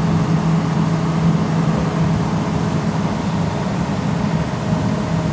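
Diesel engines of two Komatsu hydraulic excavators running steadily, a constant low drone.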